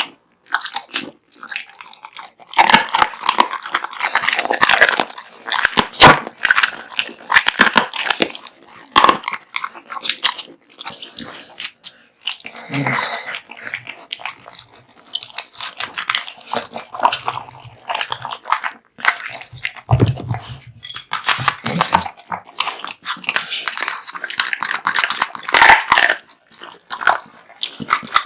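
American Bully dog chewing raw meat and bone, with loud crunches and sharp cracking bites coming in quick runs, broken by short pauses.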